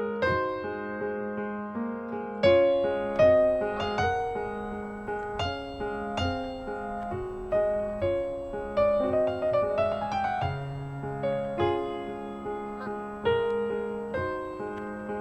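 Background music: solo piano playing a slow, gentle melody, with a quick run of notes about ten seconds in.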